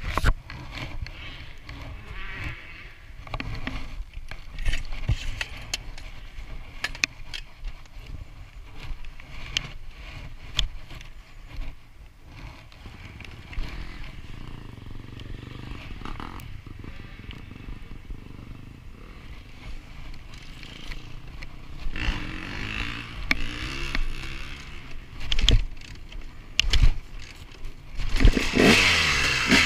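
Scrapes, clicks and knocks of a helmet-mounted action camera being handled and fitted. Near the end the KTM 250 EXC's two-stroke single-cylinder engine starts and revs.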